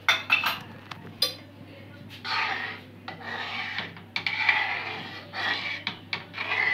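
A perforated steel skimmer clinking against a metal kadai a few times, then scraping round the pan in repeated strokes of about a second as thick milky vermicelli custard is stirred.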